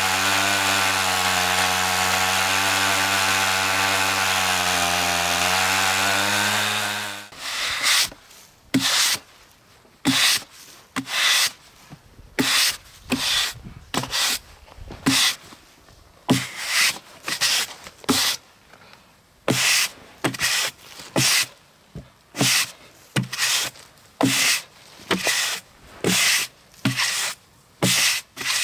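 Stihl MS 880 Magnum chainsaw on an Alaskan chainsaw mill, running steadily, then stopping about seven seconds in. After that, a stiff-bristled push broom sweeps sawdust off the freshly milled chestnut slab in quick, regular strokes, a little more than one a second.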